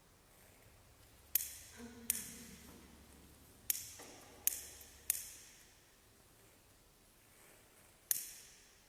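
Six sharp clicking taps at uneven intervals, each ringing out briefly, over a faint quiet background.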